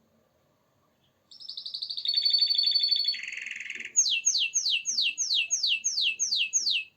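Canary singing: about a second in it starts with a rapid high trill, shifts to a lower buzzy phrase, then runs through about ten quick downward-sweeping whistles before stopping suddenly near the end.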